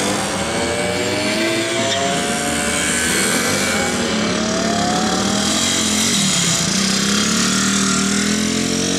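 Vintage 50 cc two-stroke mopeds riding past, their engines running with pitch that rises and falls as they speed up and pass. More than one engine is heard at once at different pitches.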